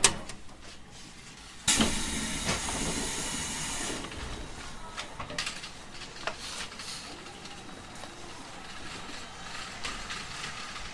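Sudden loud hiss of compressed air from a JR Kyushu 811 series electric train, starting about two seconds in and lasting about two seconds. It settles into a quieter steady noise with scattered clicks.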